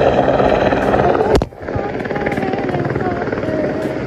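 Helicopter passing close by, its rotor and engine noise loud and steady. About a second and a half in there is a sharp click, after which the noise carries on a little quieter.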